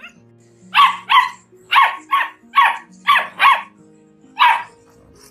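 A puppy yapping: eight short, high barks in quick succession, several in close pairs, over background music.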